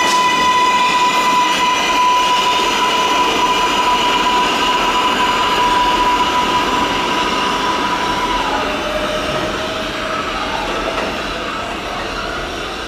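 Kawasaki R142A subway train pulling out of the station. Its electric propulsion whine holds one steady high tone, then drops to a lower pitch about eight seconds in, over the steady rumble of wheels on rail. The sound fades gradually as the train moves away.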